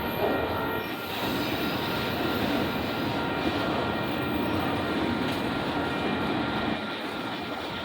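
Freight train of auto-rack cars rolling past, a steady rumble of steel wheels on the rails with faint thin high tones over it.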